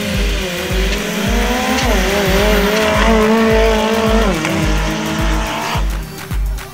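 Modified 4x4 drag jeeps' engines at full throttle on a dirt drag strip, their pitch climbing and then dropping at gear shifts about two and four and a half seconds in. The engine sound fades out near the end, over background music with a steady beat.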